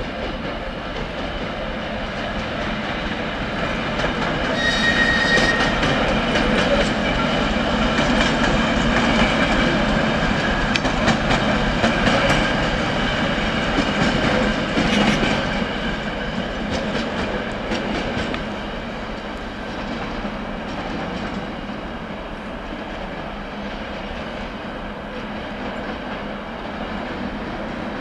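ChME3T shunting diesel locomotive running past, its six-cylinder diesel engine running under a clatter of wheels clicking over rail joints. It grows louder as it passes close, then fades as it moves away.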